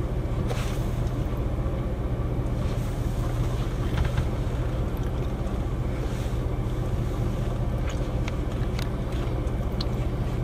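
Steady low rumble of a running vehicle under a haze of wind and rain noise, with scattered light taps.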